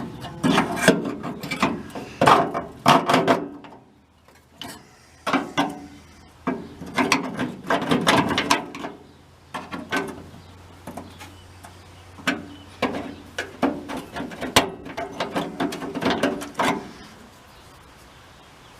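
Hand tools working on the metal of a VW bus door hinge mount: irregular clicking and scraping in bursts, with short pauses between them.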